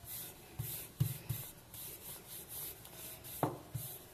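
Wooden rolling pin rolling pizza dough thin on a stone countertop: back-and-forth rubbing strokes, two or three a second, with a few soft knocks of the pin.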